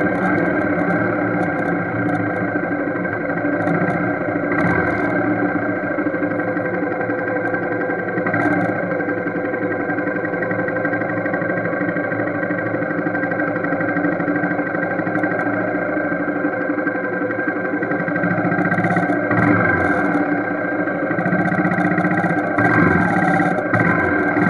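Motorcycle engine running while the bike is ridden, heard through a helmet-mounted action camera's mic. The engine note rises and falls gently a few times with the throttle.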